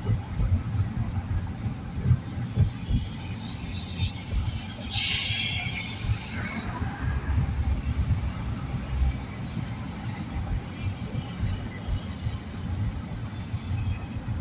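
Road noise of a car driving on a freeway: a steady low tyre and engine rumble, with a brief hissing rush about five seconds in.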